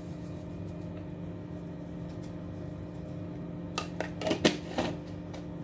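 A salt jar being tipped and shaken over a bowl, with a few sharp clicks and taps from the jar near the end, the loudest about four and a half seconds in. A steady low hum runs underneath.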